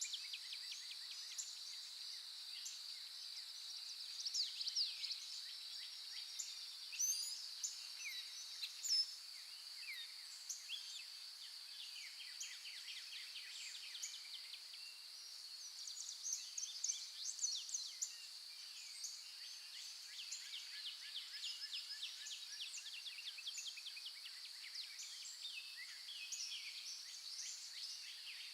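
Forest morning ambience: several small birds chirping and trilling in quick runs of notes over a steady high-pitched insect drone.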